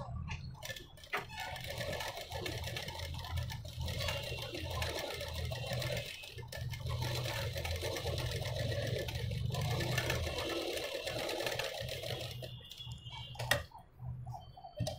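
Electric sewing machine running steadily as it stitches a seam around a curved blouse neckline, with brief pauses, stopping about twelve seconds in; a single sharp click follows.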